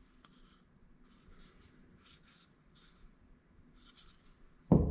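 Faint rubbing and scraping of a burst HDPE plastic mortar tube handled and turned over in the hands, in a few short patches. A sudden low thump comes near the end.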